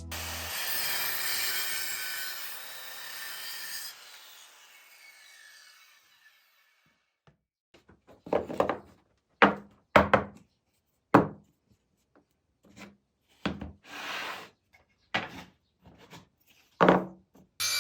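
A hand tool worked against wood in short, separate rasping strokes, about nine of them spaced irregularly through the second half. Before them, a dense hiss cuts off about four seconds in and fades away.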